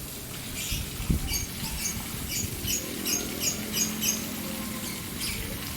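Fountain water splashing steadily, while caged birds close by chirp in a quick series of short, high calls, about three a second through the middle.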